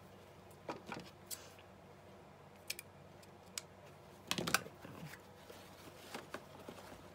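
Scattered light clicks and short rustles of lace and craft materials being handled at a desk, the loudest cluster a little past halfway.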